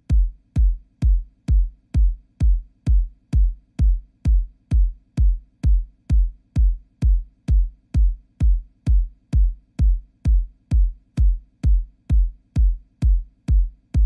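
Electronic outro music reduced to a lone kick drum beat, a deep thud with a sharp click on top, repeating steadily about twice a second.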